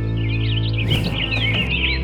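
Background music with sustained low notes, with birds chirping rapidly over it.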